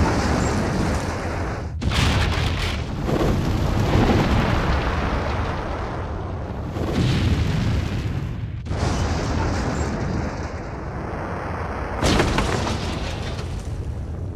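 Explosion blast: a continuous heavy roar and rumble. It swells again in fresh surges about two, nine and twelve seconds in, each after a brief break.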